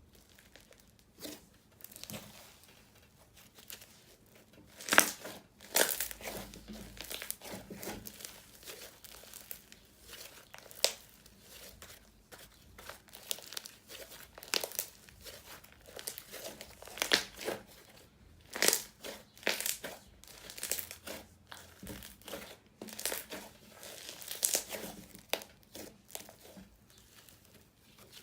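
Crunchy slime being squeezed and worked by hand, crackling and popping in irregular bursts.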